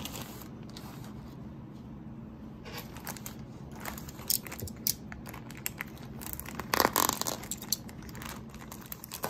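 Plastic courier mailer bag crinkling and rustling as it is handled, with a run of sharp crackles and clicks that is loudest about seven seconds in, over a steady low hum.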